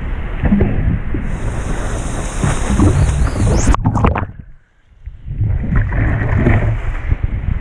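Wind buffeting the microphone over rushing, splashing water as a stand-up paddleboard rides broken surf. About four and a half seconds in, the sound drops away almost to nothing for about a second, then comes back.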